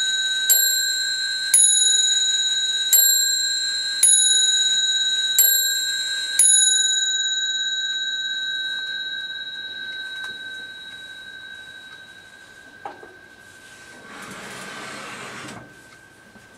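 Antique French brass mantel clock striking on its bell: six strikes a little over a second apart, after which the bell rings on and slowly fades. Near the end there is a soft rush of noise.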